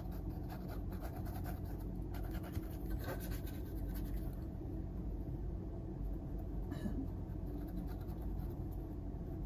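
Paintbrush scraping and dabbing thick acrylic paint on a small canvas board, a soft irregular scratching with a few stronger strokes, over a steady low hum.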